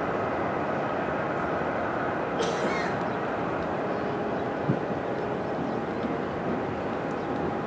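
Boeing 777-300ER's GE90 jet engines running steadily on approach, a constant rumble with a faint whine in it. A brief high hiss cuts in about two and a half seconds in.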